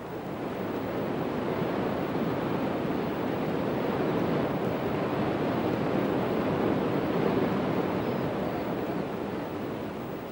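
Water rushing and splashing over a turning waterwheel: a steady wash that swells over the first couple of seconds and fades near the end.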